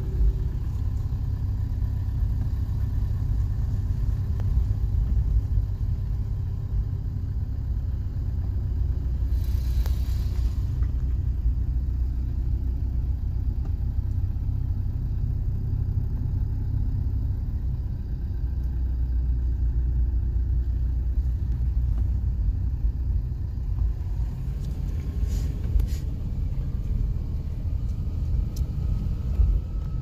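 Car driving along a road, heard from inside the cabin: a steady low rumble of engine and tyres. A brief hiss comes through about ten seconds in.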